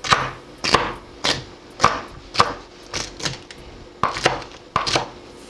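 Chef's knife chopping celery stalks on a wooden cutting board: a steady series of sharp knocks, roughly two a second, with a brief pause near the end.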